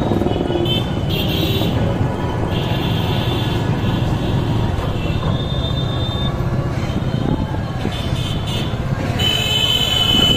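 Road traffic: a steady low rumble of engines and tyres from a moving vehicle, with a horn sounding near the end.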